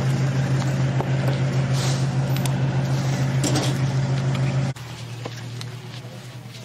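Small motorbike engine running with a steady low hum, cut off abruptly about five seconds in, leaving a much quieter background.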